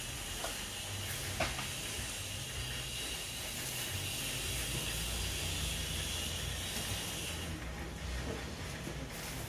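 Kanom buang batter hissing and scraping as it is spread thin across a hot flat iron griddle. The hiss stops about three-quarters of the way through, when the spreading ends. A single sharp tap sounds about a second and a half in.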